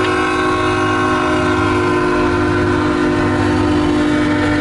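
CSX freight locomotive's air horn sounding a loud, long, steady chord of several notes at once, blown for the grade crossing as the train approaches.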